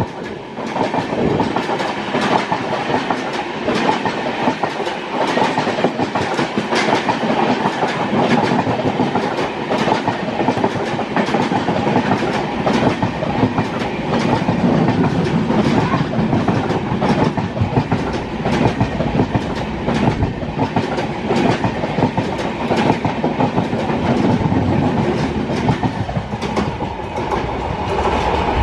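Two passenger trains running side by side on adjacent tracks, heard from an open door of one: a steady rumble and rush of the passing LHB coaches, with a continuous clickety-clack of wheels over rail joints.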